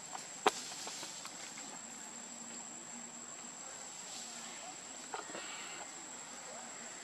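Insects droning in one steady high-pitched tone. A sharp click about half a second in and a smaller one near five seconds stand out over it.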